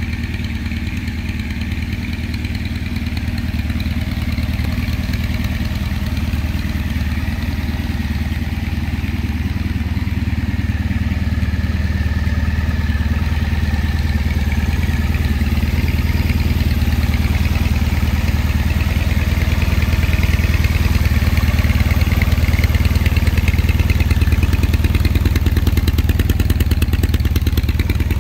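A 2014 Triumph Thruxton's air-cooled parallel-twin engine idling steadily through TOR aftermarket silencers, growing slightly louder toward the end.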